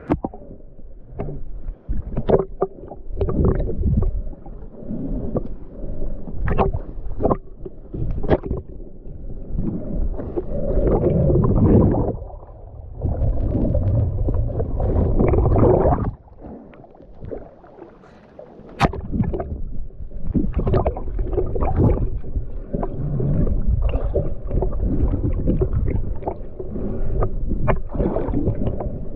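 Muffled underwater sound through an action camera's waterproof housing as it plunges below the river surface: low rumbling, gurgling water rushes, and many short knocks and clicks against the housing.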